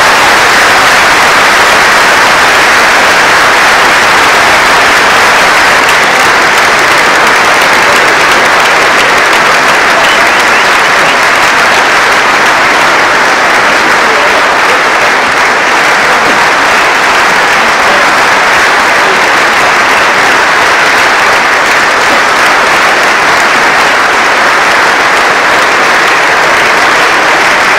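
Audience applauding loudly, a long, steady round of clapping.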